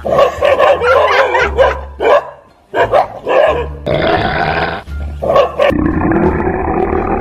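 Dogs barking in alarm at a toy tiger pushed at them, over background music.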